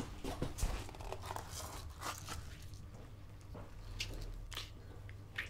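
Quiet handling sounds: scattered light knocks and crinkles of a cardboard raft with a paper sail being carried and set down, over a low steady hum.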